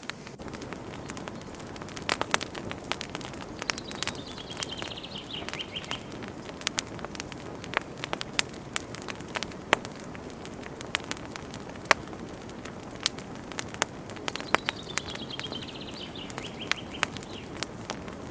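Campfire crackling, with frequent sharp pops and snaps over a soft steady rush of burning. Twice, a bird gives a falling trill lasting about two seconds, once near the start and again about two-thirds of the way through.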